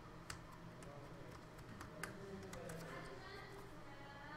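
Quiet room with a few faint, scattered clicks at a computer desk, then one sharp click at the very end.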